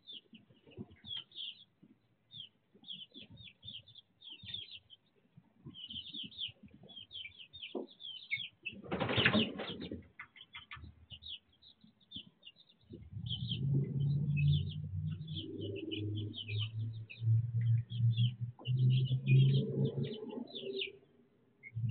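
Young chicks peeping with many short, high chirps, and a brief burst of wing flapping about nine seconds in. A low hum runs through the second half.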